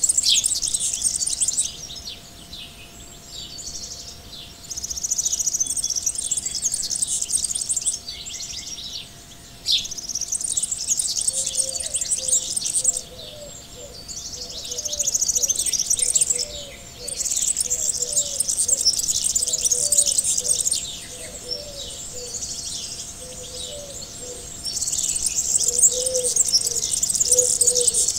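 Birdsong: bursts of high, rapid chirping and trilling a few seconds long, with quieter gaps between them, and a series of short low calls joining about twelve seconds in.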